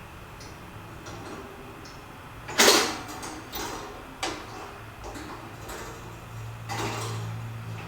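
Heater parts and packing being handled during assembly: light clicks and rustles, a louder clatter about two and a half seconds in, and a longer scrape near the end, over a steady low hum.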